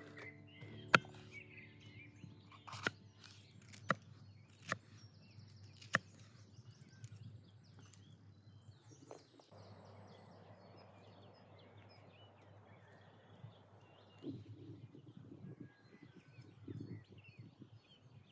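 A kitchen knife chopping through a red bell pepper onto a wooden cutting board: a handful of sharp knocks spread over the first six seconds, the first the loudest. Songbirds chirp faintly throughout, and a soft steady hiss comes in for a few seconds in the middle.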